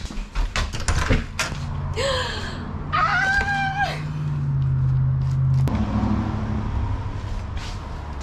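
Footsteps and a front door being opened, then a vehicle engine running steadily outside with a couple of high squeals over it; the engine sound cuts off abruptly as the door shuts.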